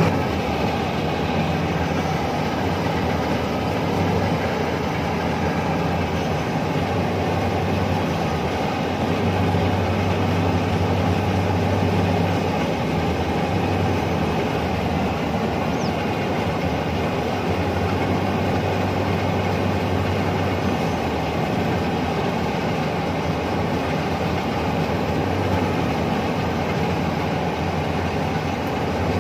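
Iseki HC80P rice combine harvester running while it cuts and threshes rice: a steady, continuous machine noise with a low engine hum underneath.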